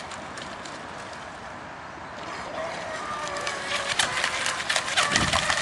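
Faint, steady whine of a brushless electric RC outrigger boat motor, coming in about two seconds in and growing louder, with scattered clicks and a short low thump near the end.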